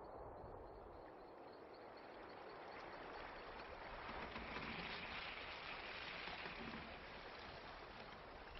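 Faint film ambience: a soft, even rushing noise like wind that swells and fades again in the middle. In the first few seconds a rapid, high ticking trill runs underneath, like night insects.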